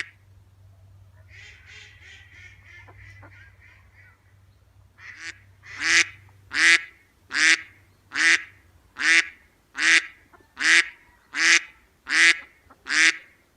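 Duck quacking: first a quieter run of quick quacks, then from about five seconds in a regular series of loud, harsh quacks, a little over one a second.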